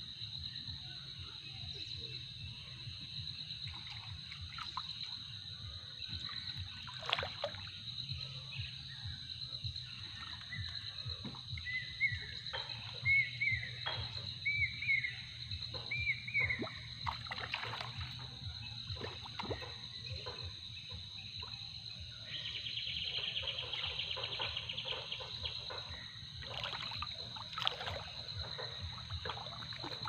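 Water splashing and dripping as a wet nylon cast net is hauled up out of a river, in irregular splashes. A steady high-pitched buzz runs underneath, and a few short bird chirps come around the middle.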